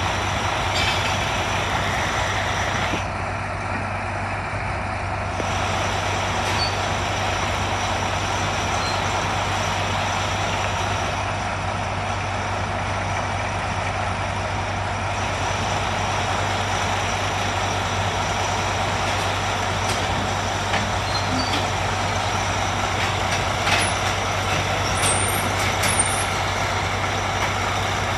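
Diesel engines of Caterpillar 583 sideboom pipelayers running steadily under load, a constant low hum with machinery noise over it, while the booms hold and lower a locomotive onto the rails. A few faint clicks near the end.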